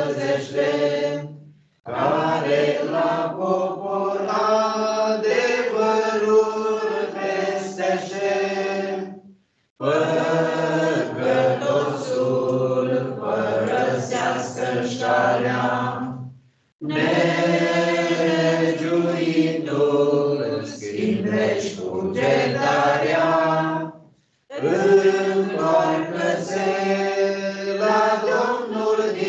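A choir sings a hymn in long, sustained phrases, breaking off into brief silences four times between phrases.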